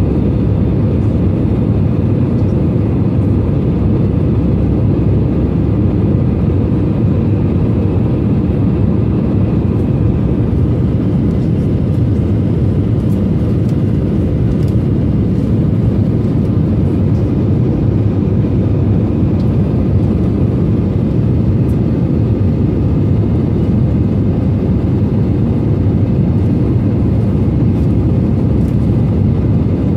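Airbus A320 cabin noise during the climb after takeoff, heard through the cabin by a window seat: a steady, loud, low roar of the jet engines and the airflow.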